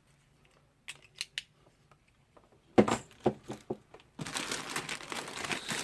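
A courier package being opened by hand: a few light clicks, then a cluster of sharp knocks and snaps, then packaging rustling and crinkling from about four seconds in.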